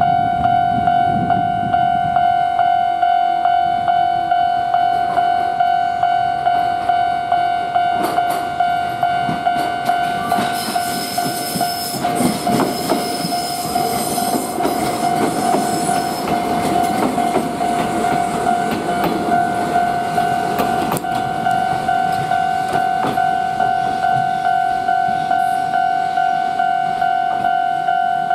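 Japanese level-crossing warning bell ringing in a steady, even rhythm. About ten to sixteen seconds in, a Kōnan Railway 7000-series electric train passes over the crossing with wheel and rail noise. The bell cuts off suddenly at the end.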